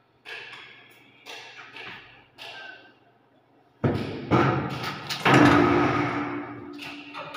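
A newly hung interior door being worked by its handle: a few light clicks and knocks from the latch in the first three seconds, then louder thumps from about four seconds in as the door is pulled open.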